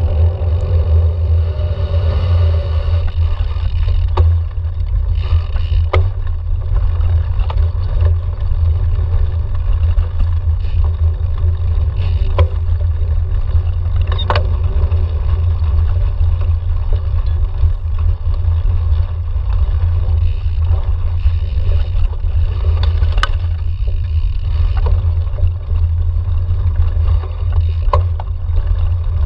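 Steady low rumble of wind buffeting a camera microphone on a cyclocross bike ridden at speed, with the tyres running over path and forest dirt. Now and then the bike rattles and knocks sharply over bumps in the trail.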